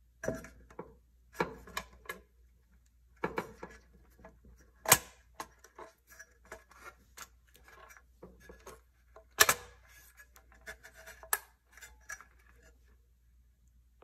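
Plastic mounting clips of a refrigerator control board being pushed and snapped into its sheet-metal housing, with handling knocks and rattles of the metal box. The clicks come irregularly, the sharpest about five and nine and a half seconds in.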